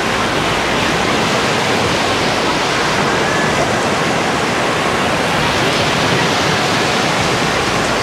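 Black Sea surf washing up onto a sandy shore: a steady, unbroken rush of breaking and receding waves, with faint voices of people on the beach.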